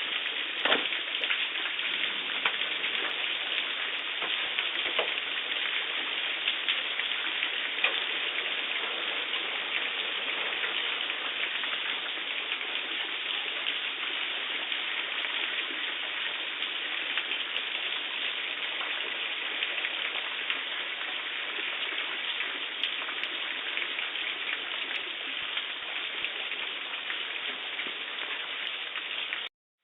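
A hailstorm: heavy rain pouring steadily, with scattered sharp hits of hailstones striking.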